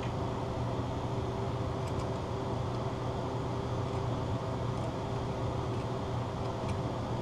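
A steady low mechanical hum, with a few faint, light metal clicks as needle-nose pliers work small parts inside a distributor.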